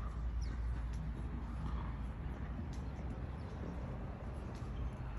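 Low rumbling outdoor background noise with a few faint high chirps and ticks over it.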